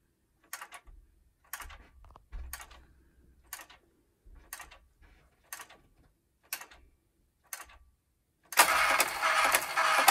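Bodet flip clock's minute leaves flipping once a second, a sharp click each time, as its minute coil is pulsed at a minute per second. About eight and a half seconds in, the clock passes midnight and its DC date motor starts, running with a loud, continuous clatter of flapping leaves as it fast-forwards the date past the end of February.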